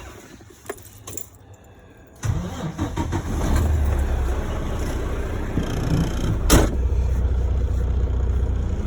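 Semi tractor's diesel engine starting about two seconds in and then settling into a steady low idle, with one sharp click a few seconds later.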